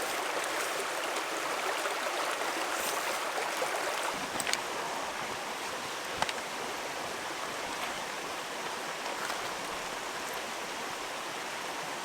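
A stream running steadily, with a couple of light knocks about four and a half and six seconds in.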